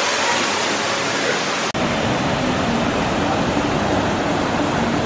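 White water rushing over rocks in a small landscaped cascade into a pool: a steady, loud hiss of falling water, with a brief dropout under two seconds in.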